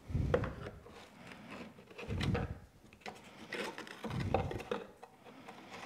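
Hands rummaging through dry mouse-nest debris and rusty hardware in the wooden compartments of a 1914 National Cash Register drawer, scraping and rubbing in several short bursts.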